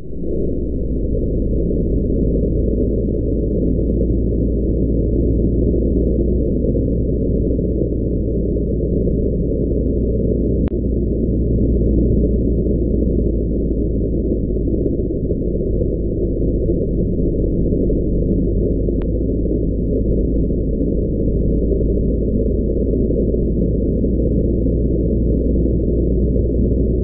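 Angle grinder grinding the steel blade of a wood planer to sharpen it: a steady grinding noise that sounds heavily muffled, with its high end cut away.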